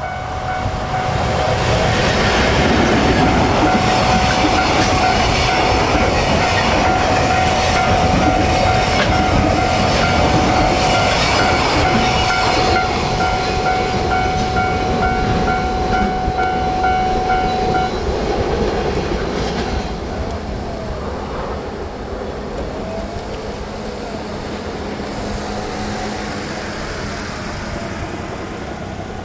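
JR Freight EF210 electric locomotive and its eight Koki 100-series container flatcars passing, the wheels running loud and steady over the rails, with a level-crossing warning bell ringing in a fast repeating pattern. The bell stops about 18 seconds in, and the train noise then drops lower as the train moves away.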